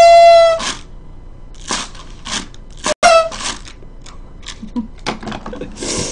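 Toy paper party blower blown hard: a loud, steady tone with many overtones that stops under a second in, then a second short, slightly falling toot about three seconds in. Short hissy puffs come in between and near the end.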